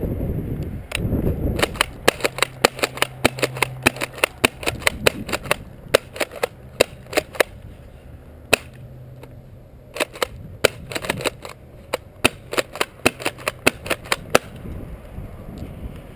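Bravo tri-shot airsoft pump shotgun being pumped and fired again and again: a long run of sharp snaps, two or three a second, with a pause of a couple of seconds near the middle.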